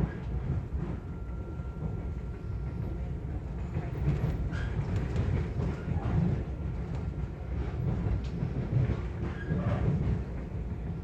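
Interior running noise of a 485-series electric train car: a steady low rumble with occasional knocks from the wheels over the rails, and a faint thin whine in the first few seconds.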